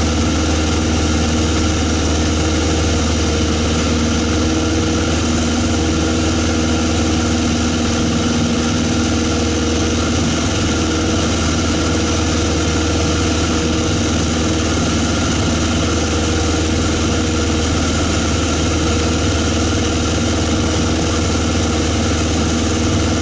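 Single-engine light aircraft's piston engine and propeller running steadily in flight, a constant low drone heard inside the cockpit.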